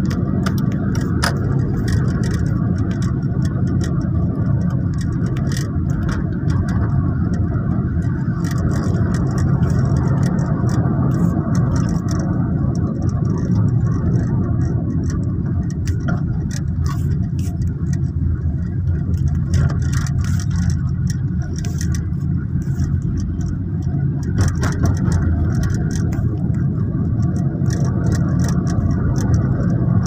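Steady low rumble of engine and road noise heard from inside a moving car's cabin, with scattered light clicks.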